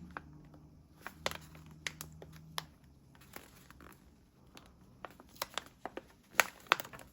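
Embroidery-kit packaging being handled and carefully opened by hand: crinkling with scattered sharp crackles, which come thicker near the end.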